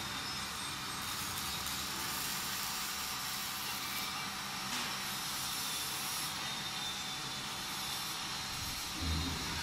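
Steady background hiss with no clear source, with a short low thump about nine seconds in.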